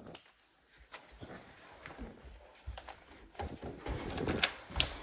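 Quiet room with scattered light clicks and taps, a few sharper ones in the last second and a half.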